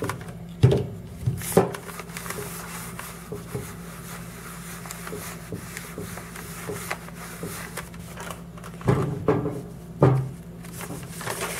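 Handheld clothes iron sliding and rubbing over a sheet of paper laid on EVA foam, heating the foam to soften it for moulding. A few short knocks as the iron shifts and is lifted, a cluster in the first two seconds and two more near the end, over a steady low hum.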